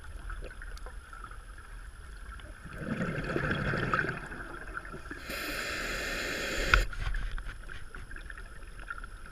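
Scuba diver breathing through a regulator underwater: a rush of bubbling about three seconds in, then a hissing breath that cuts off sharply about seven seconds in.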